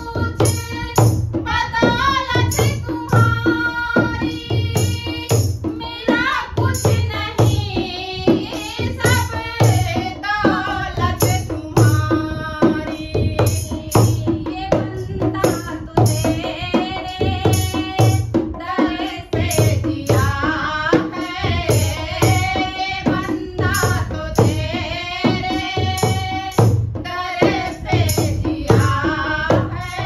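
Women singing a Hindi devotional bhajan to a steady beat from a dholak played by hand, with the jingling shake of a handheld clapper.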